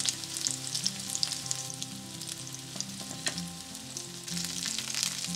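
Hot oil sizzling and crackling in a skillet of frying marinated kingfish steaks, with quick small spattering pops throughout and one sharper click a little past three seconds in.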